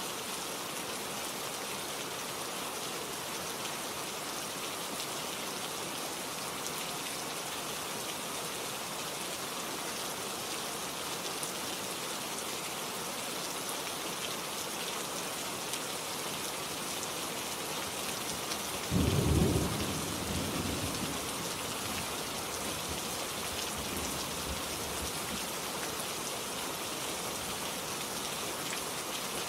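Steady rain falling, with a short rumble of thunder about two-thirds of the way through that fades over a few seconds.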